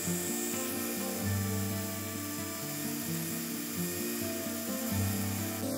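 Background music with a bass line that steps from note to note. Under it runs a steady high-pitched whine, as from a small power tool.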